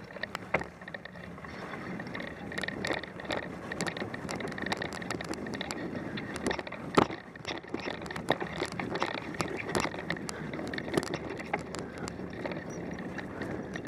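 Mountain bike riding over a trail of dry leaves and thin snow: steady tyre noise with frequent clicks and rattles from the bike, and one sharper knock about seven seconds in.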